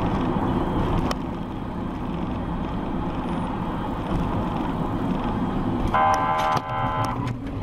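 Road and engine noise inside a moving car as it slows, with a car horn sounding twice, briefly, near the end.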